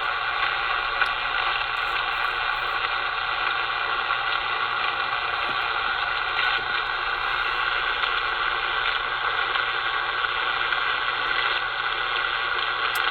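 Steady hiss of 11-metre band noise from a President Jackson CB radio's speaker on SSB, with no readable station on the channel.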